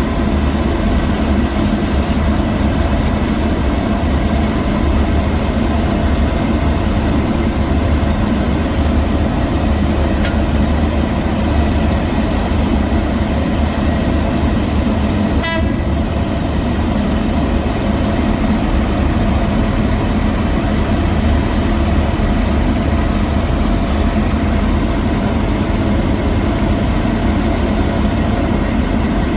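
Heavy road-construction machinery engines running steadily, a constant low rumble with faint steady tones on top. About halfway through there is a brief rapid rattle.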